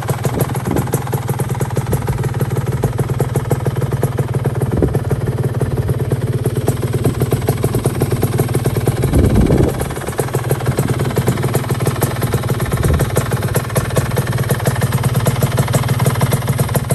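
Yamaha RXZ 135's two-stroke single-cylinder engine idling with a fast, steady beat, briefly blipped once about nine seconds in.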